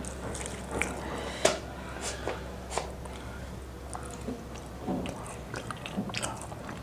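A person chewing and biting crispy fried chicken, with irregular crunches and crackles of the coating; the loudest crunch comes about one and a half seconds in.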